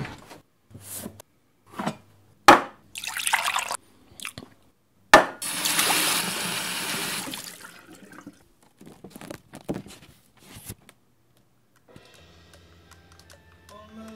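A string of short clicks and knocks as the fridge is opened, then a tap running water into a glass in a stainless-steel sink for about two seconds. A quick run of clicks follows as vinyl record sleeves are flicked through on a shelf, and faint music with held notes comes in near the end.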